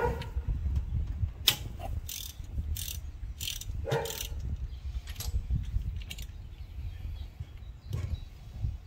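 Ratchet wrench on a long extension clicking in short, irregular strokes as a spark plug is worked loose from a Ford 289 V8, over a low rumble.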